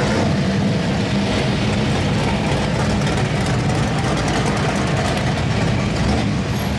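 A loud vehicle engine running steadily, with no revving.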